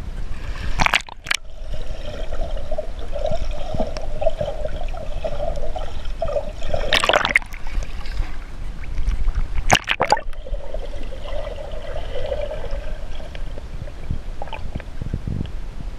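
Pool water sloshing and gurgling around a camera at and just below the surface, with a steady low rumble. Three louder splashes come about one, seven and ten seconds in.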